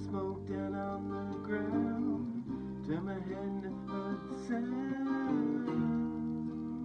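Two acoustic guitars strummed and picked together, with a man's voice singing along over them, gliding between notes.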